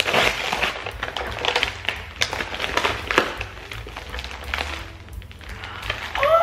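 Plastic packaging crinkling and rustling as a mailer is punctured and pulled open by hand and a clear plastic bag inside is handled. Busiest in the first three seconds, sparser after.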